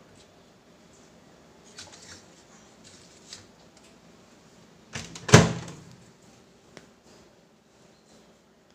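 Microwave convection oven door being shut: a few faint clicks and knocks, then one loud slam about five seconds in as the door closes.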